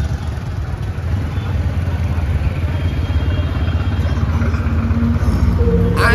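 TVS motorcycle engine running as the bike pulls away and rides off, heard from on the bike, getting a little louder after about a second.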